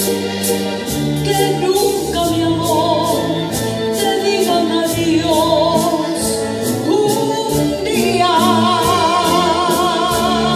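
Three female voices singing together with vibrato, backed by a symphony orchestra with strings. A new held phrase begins about eight seconds in.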